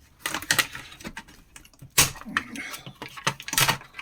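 Irregular clicks, knocks and rattles of plastic and metal parts from a mini fridge being pried at and handled during a teardown, a stuck part being worked loose.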